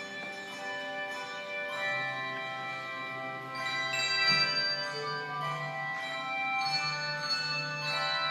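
Handbell choir playing a piece: chords of ringing handbells struck every second or two, each left to ring on under the next. Lower notes join about two seconds in.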